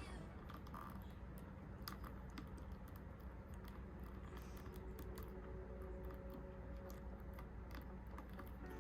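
Faint, irregular clicks and taps of a plastic action figure's joints and accessories being handled and posed.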